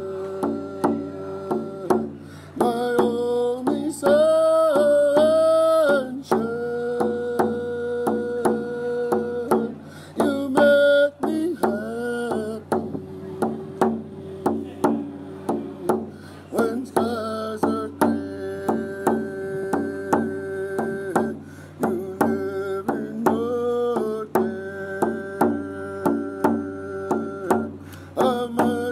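A man singing slow, long-held notes over the steady beat of a rawhide hand drum struck with a beater.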